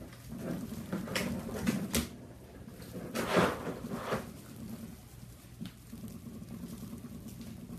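Kittens scampering and batting at a plastic toy on a wooden floor: soft paw pats and light knocks, with one louder scuffle about three and a half seconds in.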